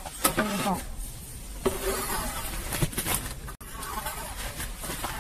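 A few sharp clicks and knocks over a low steady background, with a short bit of voice just after the start and faint voices later.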